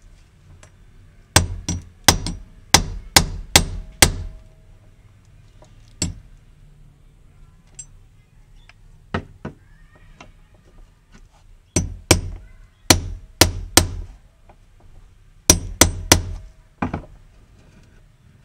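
A hammer strikes a long metal rod held against the fuel tank's locking ring around the fuel level sender, knocking the ring round. The sharp metallic taps come in three quick bursts of five to seven strikes, with a few single taps between them.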